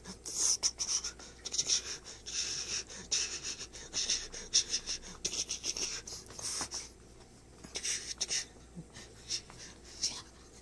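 Irregular scuffing and rustling as a rubber slipper rubs and pushes a puppy around on a carpet in play, in short hissy bursts that thin out in the last few seconds.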